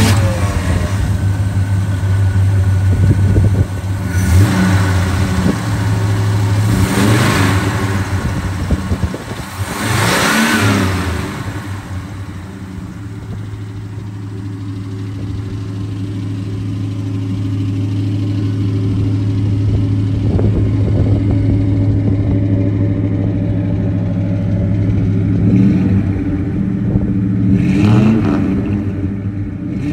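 1972 Chevrolet C10 pickup engine idling, revved up and back down three times in the first dozen seconds and twice more near the end.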